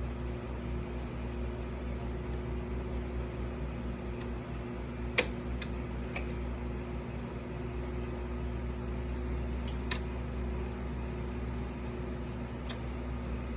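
Pioneer PL-530 turntable running with a steady mechanical hum, broken by a few sharp clicks, the loudest about five seconds in and another about ten seconds in.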